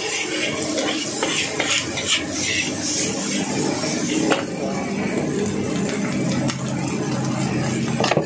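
Metal spatula scraping and clanking against a steel wok as fried rice is stir-fried, with a few sharper knocks, over a steady hiss.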